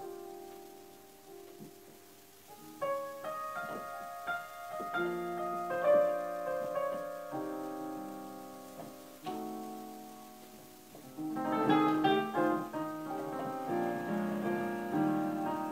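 Piano music: slow sustained notes and chords, growing louder about three seconds in and again in a fuller passage about eleven to twelve seconds in.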